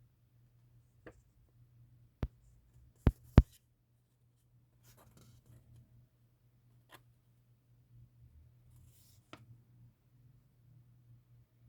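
Hands unboxing an UNO Platinum Edition card game: a few sharp clicks and taps, the loudest two close together about three seconds in, with soft rustling of handling between them, over a steady low hum.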